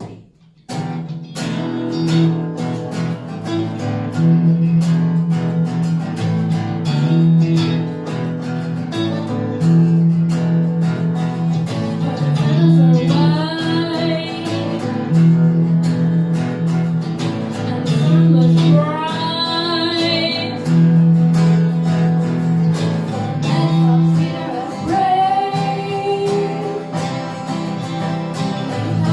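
Background song with steadily strummed acoustic guitar, and a voice singing in a few phrases.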